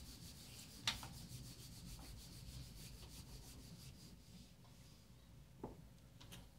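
Faint rubbing of a handheld whiteboard eraser wiped in quick back-and-forth strokes over a whiteboard, with a sharp knock about a second in and a smaller one near the end.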